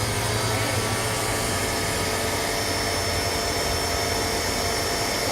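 Tagorine 2600 PSI electric pressure washer's electric motor running steadily, with a steady whine over its hum.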